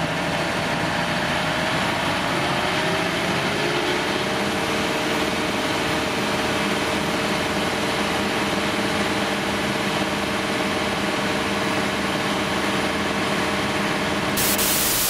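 John Deere 6215R tractor's diesel engine running hard under load on a PTO dynamometer during a power and torque test; its pitch sags over the first few seconds, then holds steady. Near the end a burst of TV-static hiss cuts in.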